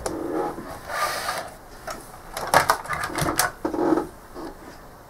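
Irregular clicks and rattling of equipment and cables being handled, with a cluster of sharp clicks about two and a half to three and a half seconds in.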